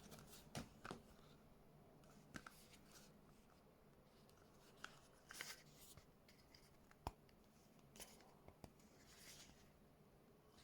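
Faint, scattered clicks and rustles of a new Dango A10 Adapt bifold wallet being handled, with near silence between them.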